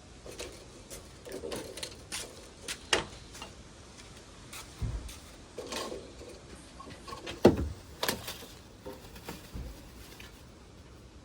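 Scattered knocks, clunks and scrapes of a wood lathe's shipping crate and packaging being handled, with a few dull thumps. The loudest is a sharp knock about seven and a half seconds in.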